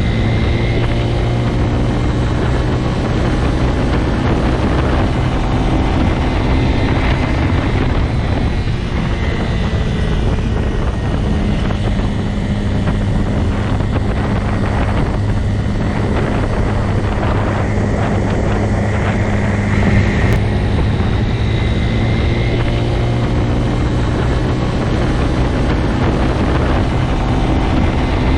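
Motorcycle engine running at a steady, nearly constant pitch.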